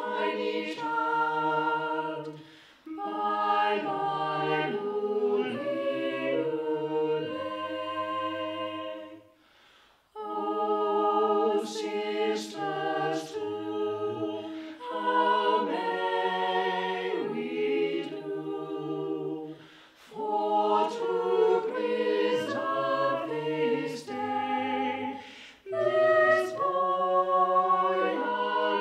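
Small mixed chamber choir singing a carol unaccompanied, in parts. The singing comes in phrases with short breaks between them, the longest about a third of the way in.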